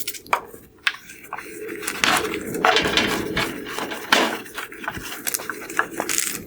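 A plastic headlight lens being rinsed to wash off the surface activator: water splashing and running, with irregular knocks and scrapes as the headlight is handled.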